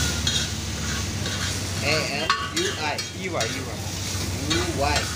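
Noodles sizzling on a flat griddle while a metal spatula stirs and scrapes them, with scattered clicks of the spatula against the griddle.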